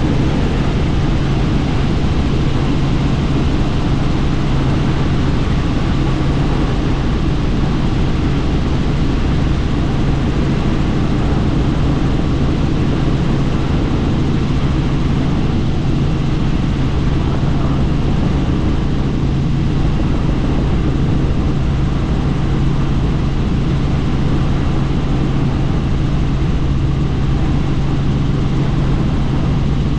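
Helicopter in steady flight, heard from on board: a constant low hum from the rotor and engine over an even rushing noise, unchanging throughout.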